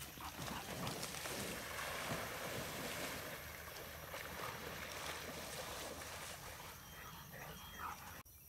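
Pond water splashing and sloshing as Labrador retrievers wade and swim after thrown balls, loudest in the first few seconds.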